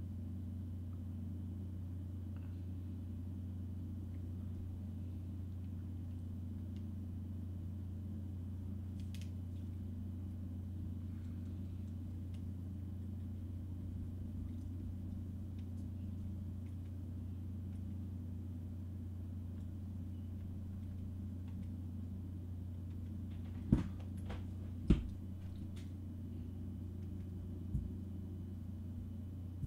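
Steady low electrical hum of room tone. Near the end come two sharp clicks about a second apart, then a softer one.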